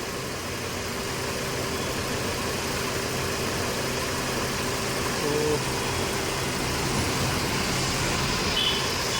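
Mercedes-Benz C200's M271 four-cylinder petrol engine idling steadily under the open bonnet while misfiring on one cylinder, so it runs on three and shakes; the fault code points to the cylinder 4 ignition coil shorted to ground.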